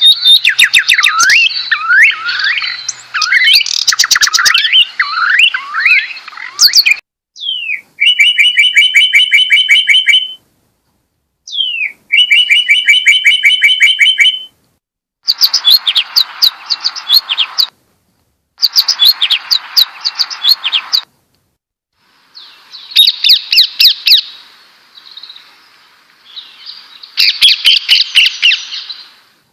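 Songbird chirps and trills in a string of separate recordings, each cut off abruptly by a second or so of silence before the next begins. Twice a single downward-sweeping note leads into a fast, even trill.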